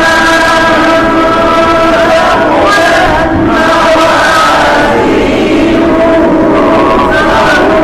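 Quran recitation chanted melodically in maqam Rast: long held notes embellished with small turns and glides.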